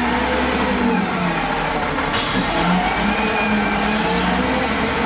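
Caterpillar 966H wheel loader's diesel engine running under load, its note rising and falling as it is worked, with a short sharp hiss about two seconds in.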